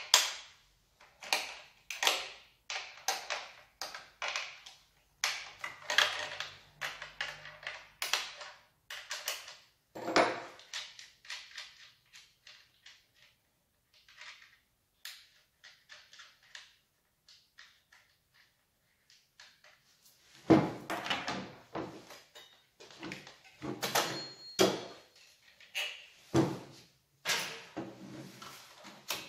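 Irregular knocks, clicks and scrapes of a chainsaw's parts and packaging being handled, with a quieter spell partway through.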